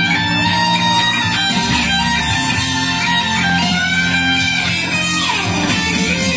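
Electric guitar solo with string bends rising in pitch, then a long slide downward near the end, over sustained low bass notes.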